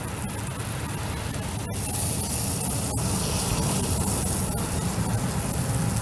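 Fish frying in butter in a pot, a steady sizzle, with a low rumble underneath.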